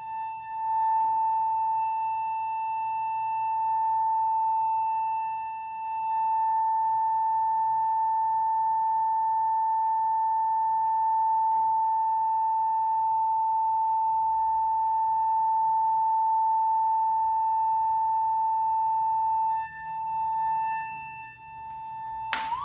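Steady 900 Hz sine tone from a loudspeaker driven by a signal generator, sounding into a water-closed resonance tube to set up a standing wave in its air column. Its loudness dips briefly twice. Near the end the pitch sweeps sharply upward and cuts off as the generator is adjusted.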